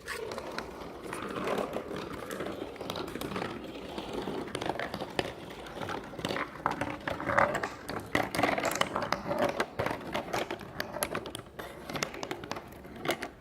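Irregular small clicks, taps and crinkling from cardboard being handled.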